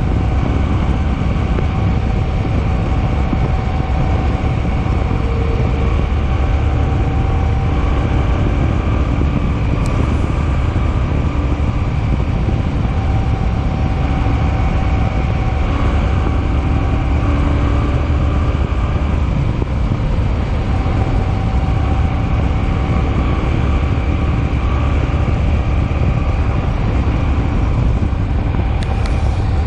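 Steady wind rush and road noise from a motorcycle at cruising speed, with the Suzuki Boulevard M50's V-twin engine droning underneath.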